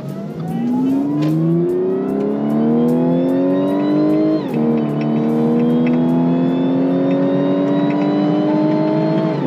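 2016 Audi S4's supercharged 3.0-litre V6, fitted with an aftermarket CTS Turbo intake, at full throttle, heard from inside the cabin: the engine note rises steadily, drops sharply at an upshift about four and a half seconds in, then climbs again through the next gear. A high supercharger whine rises along with it.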